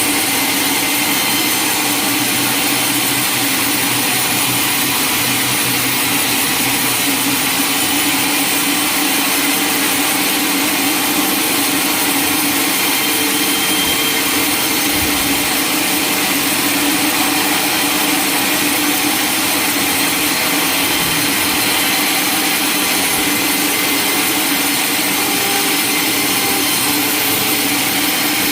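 Sawmill saw cutting a log, a loud, steady rushing noise with an even hum underneath.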